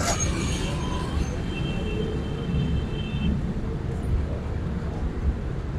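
Street background noise: a steady low rumble of traffic, with a faint high tone for a second or two near the middle.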